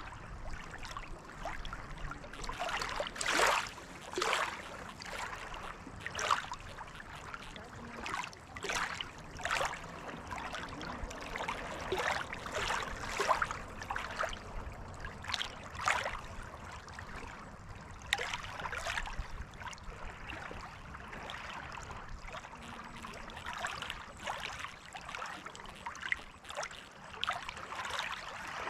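Small waves of lake water lapping, with irregular little splashes over a steady wash.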